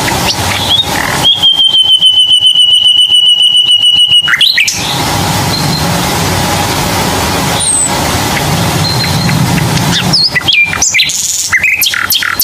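Birdsong: a loud, even trill lasting about three seconds, then a run of short chirps near the end, over a steady low background hum.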